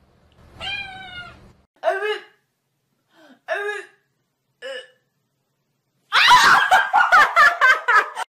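A kitten meowing four times in short, high cries. About six seconds in, a woman starts laughing hard in quick, loud pulses for about two seconds.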